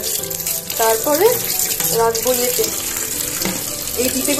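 Kitchen tap running into a stainless-steel sink while cut fish pieces are rinsed under the stream.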